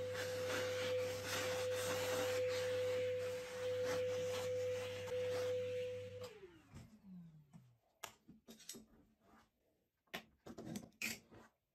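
Shop vacuum sucking sawdust through its ribbed hose with a steady whine, switched off about six seconds in so the motor winds down with a falling pitch. Then a few clicks and knocks of metal bench clamps being handled and released near the end.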